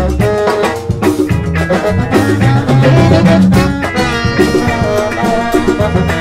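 Live Latin band playing a salsa-style groove: horns and keyboard over drums, with a shekere (beaded gourd shaker) being shaken.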